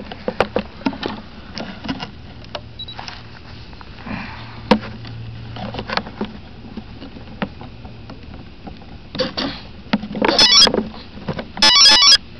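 Close handling noise on a small on-board camera: scattered clicks, knocks and rubbing. Two loud, distorted crackles come near the end.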